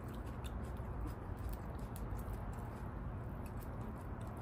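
Faint scattered small clicks and mouth sounds of people eating a meal, over a low steady hum.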